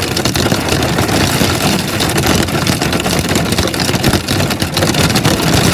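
Wind-driven heavy rain from a severe thunderstorm lashing a car, heard from inside the cabin: a loud, dense hiss with fast, fine pattering.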